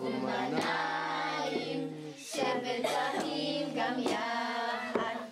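A group of children singing together in unison, holding long notes in phrases with short breaks between them.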